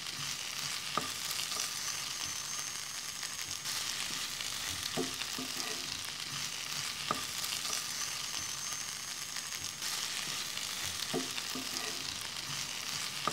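Sliced ivy gourd sizzling in oil as it is stir-fried dry in a pan, nearly done sautéing. A wooden spatula scrapes through it and knocks against the pan four times.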